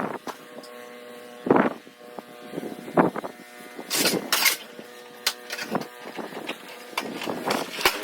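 Small gasoline engine of a snowblower running steadily, broken by short loud bursts of noise about every second or so.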